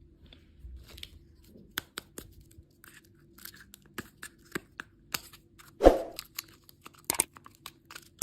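Plastic candy packaging being handled and torn open: scattered crinkles and small clicks, with one louder thump about six seconds in.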